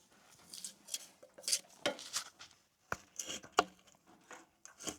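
Scattered light knocks and clinks of handling at a sawmill, wood and metal being moved about while a log is set up on the mill bed.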